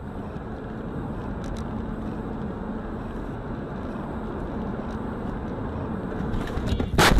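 Steady road and engine noise of a car driving, heard from inside the cabin, then a sudden loud bang near the end: the impact of a car collision.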